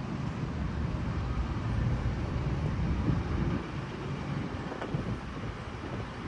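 Low outdoor rumble that swells about two seconds in and drops back after about three and a half seconds.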